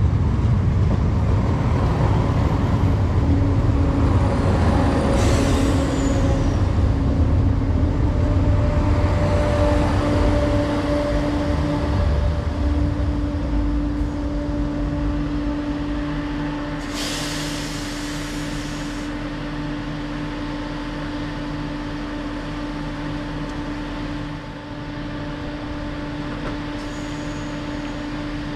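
Class 170 Turbostar diesel multiple unit at a station platform: its underfloor diesel engines run with a steady hum over a heavy rumble that dies away just past the midpoint. About two-thirds of the way in comes a short hiss of air, and the engines then idle with a quieter steady hum.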